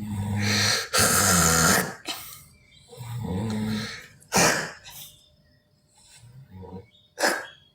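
A person snoring loudly, about three cycles: low rumbling snores alternating with short, loud, noisy breaths.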